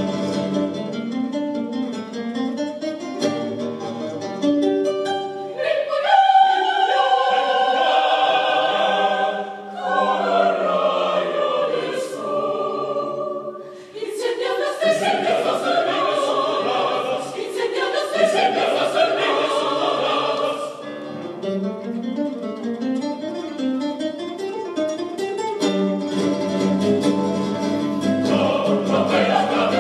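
Mixed choir singing with classical guitar accompaniment. The sound swells, thins out almost to nothing for a moment about halfway, then builds again.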